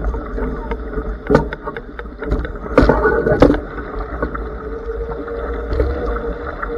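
Wind buffeting the microphone and water rushing along a Blaze sailing dinghy's hull at speed in strong gusts, with sharp spray slaps striking about one and a half, three and three and a half seconds in.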